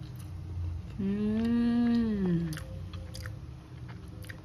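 A woman chewing a mouthful of rice and duck, with small wet mouth clicks. About a second in, a closed-mouth "mmm" of enjoyment lasts about a second and a half, its pitch rising a little and then falling away.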